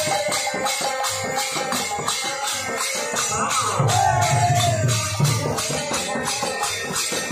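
Odia kirtan music: jingling hand cymbals keep a fast, even beat over drum strokes and held melody notes.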